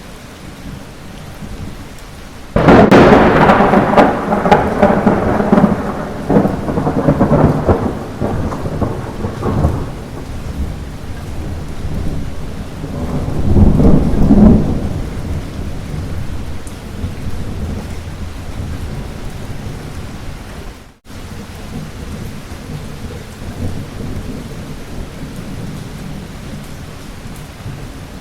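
Steady light rain with a sudden thunderclap about two and a half seconds in that rumbles away over several seconds, then a second, softer rumble of thunder swelling and fading near the middle. The rain cuts out for an instant about three quarters of the way through.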